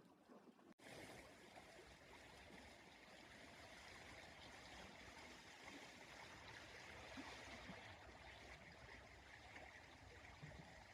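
Faint, steady rush of a small stream flowing, starting abruptly about a second in.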